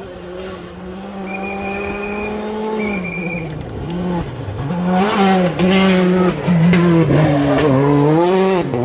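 Rally car approaching at speed and growing louder. As it comes close, its engine note drops and climbs again several times as the driver shifts and lifts for the corner.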